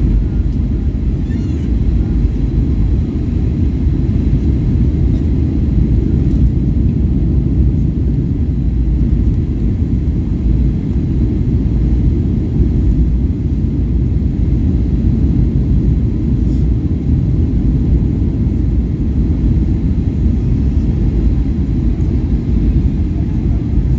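Steady low rumble of a Boeing 737-800 cabin in flight on approach, heard from a window seat over the wing: the CFM56-7B engines and the rush of air over the airframe with the flaps extended.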